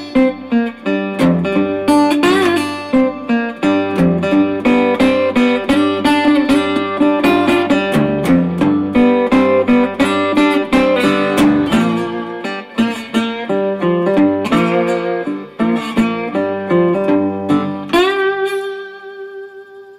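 Resonator guitar fingerpicked with a glass slide in a blues phrase, notes sliding in pitch. About eighteen seconds in, a final chord is struck and rings out, fading away.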